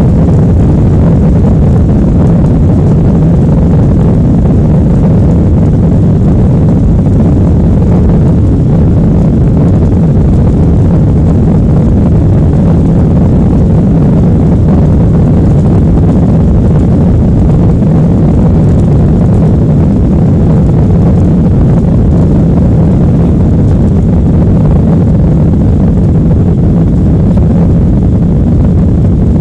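Steady airliner cabin noise: a loud, even, low rumble of engines and airflow heard from inside the passenger cabin, unchanging throughout.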